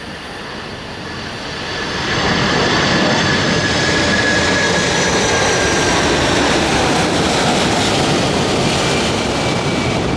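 Jet airliner passing low overhead on its landing approach: the engine rush swells over the first two seconds and stays loud, with a high engine whine that slowly falls in pitch as it goes by.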